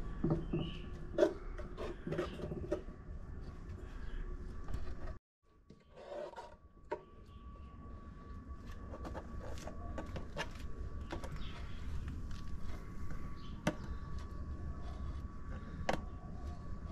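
Metal spoon scooping thick pomegranate paste from an aluminium pot into a plastic jar: scattered clicks and short scrapes as the spoon knocks the pot and the jar's mouth, over a low steady background rumble. The sound cuts out briefly about five seconds in.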